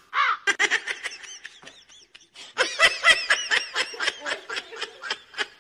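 Rapid, high-pitched laughter: a quick run of short squeaky bursts, about five or six a second, that gets louder partway through.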